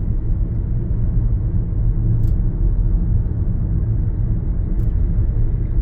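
Car driving, heard from inside the cabin: a steady low rumble of engine and road noise, with a couple of faint clicks.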